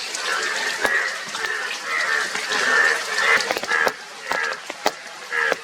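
Indian bullfrogs croaking, harsh calls following one another several times a second and overlapping, with sharp clicks scattered among them. These are the breeding calls of males.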